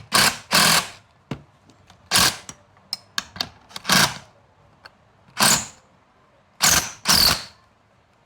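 Socket ratchet with an extension driving lag screws into the wooden header: about seven short rasping strokes, unevenly spaced, two of them with a brief squeak as the screw turns in the wood.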